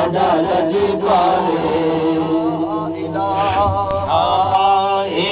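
Sufi devotional chanting by men's voices, a wavering sung line over a steady low hum that carries on without a break.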